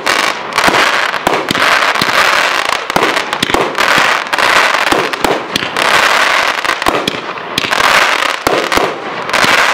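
Aerial fireworks bursting in quick succession: many sharp bangs, several a second, over a continuous crackling hiss.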